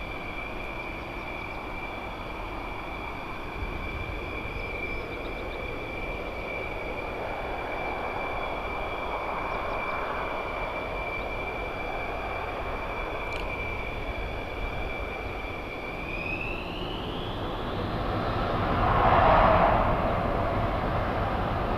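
Jet aircraft engine with a steady high whine that rises in pitch about sixteen seconds in, as the jet's roar swells to its loudest near the end.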